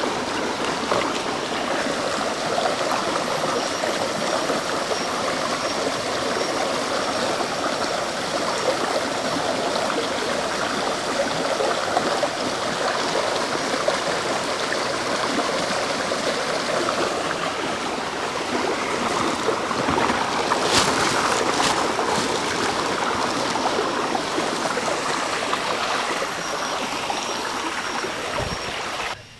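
Shallow rocky stream running steadily, water rushing and gurgling over stones. A few brief sharp sounds come about two-thirds of the way through.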